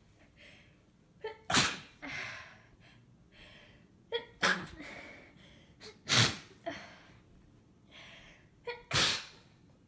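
A person with a congested head cold sneezing four times in a row, each loud sneeze led by a short sharp sound just before it, with breathy sniffling between them.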